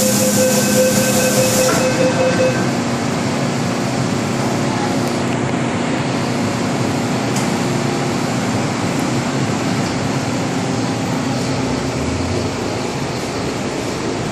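Interior of an MTR M-Train metro car: a door-closing warning tone and a loud hiss in the first two seconds as the doors close, then the even, steady running noise of the train.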